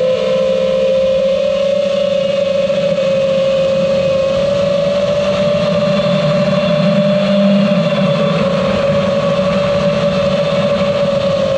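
Brushless motors and propellers of an iFlight TITAN DC5 FPV quadcopter on a 6S pack, buzzing steadily at cruising throttle. The pitch wavers slightly with throttle changes, and the buzz grows a little louder about seven seconds in.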